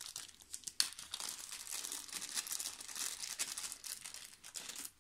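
Bubble wrap crinkling and crackling as hands unwrap a miniature from it, with a sharp louder crackle about a second in.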